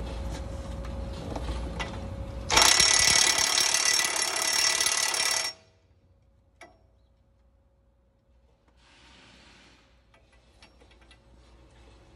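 Cordless impact wrench hammering hard for about three seconds and then stopping abruptly, with a single click a second later. It is being used to press out a stuck kingpin on a medium-duty truck's steering knuckle. Before the burst a steadier, quieter hum runs.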